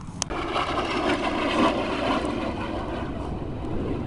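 Aero L-39 Albatros jet trainer flying past, its turbofan engine a rushing jet noise with a faint whine, swelling to a peak between one and two seconds in and then easing off. A single sharp click about a quarter second in.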